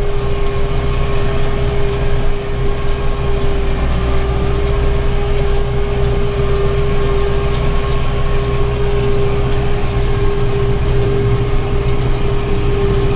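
Tractor engine running steadily under load while driving a round baler that is picking up and rolling hay: a constant engine drone with a steady whine over it and a few faint ticks.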